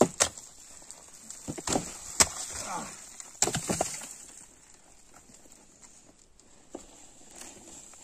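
Several sharp knocks and clatters of timber and stone being worked by hand during demolition of a stone house, bunched in the first half, then quieter.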